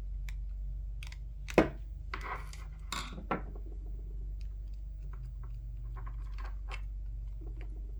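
Small clicks, taps and scrapes of a screwdriver and hard plastic headset parts being handled while screws are removed, with one sharp, loud click about one and a half seconds in and brief scraping just after.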